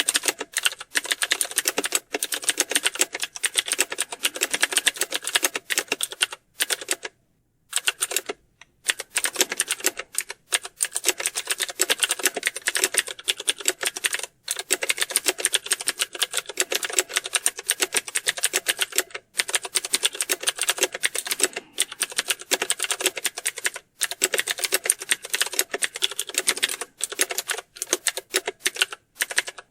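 Fast typing on computer keyboards: a dense run of key clicks, with brief pauses now and then, the longest about seven to eight seconds in.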